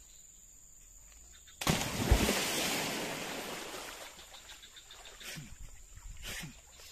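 A person jumping into deep water: one big splash about a second and a half in, then water churning and sloshing as it settles, with a couple of smaller splashes near the end.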